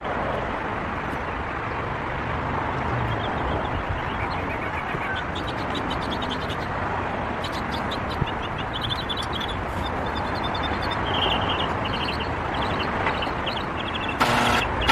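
Steady outdoor background hum, like distant traffic, with birds chirping faintly now and then. A louder noise starts just before the end.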